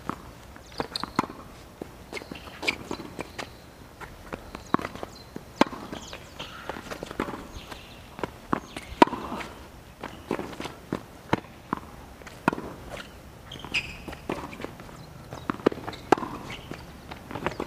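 Tennis rally on a hard court: sharp pops of the ball striking racket strings and bouncing on the court, every second or so, with the players' footsteps between them.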